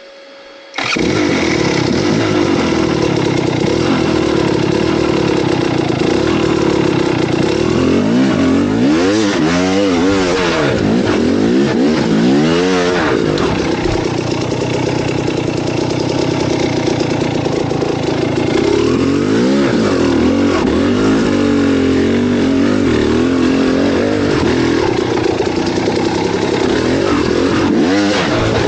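Motorcycle engine running, coming in abruptly just under a second in. It holds a steady note, with its pitch swinging up and down with the throttle in the middle and again about two-thirds through.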